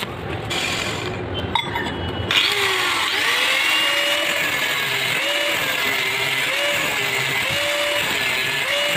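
Stick-welding arc crackling, then about two seconds in an angle grinder with a thin cut-off disc starts cutting a threaded steel rod, its steady whine wavering up and down in pitch.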